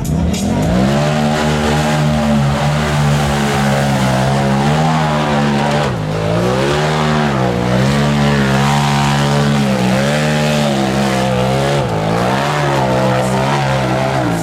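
Big-tire mud truck's engine revving hard. The revs climb steeply in the first second, then hold high with repeated dips and surges in pitch as the throttle is worked.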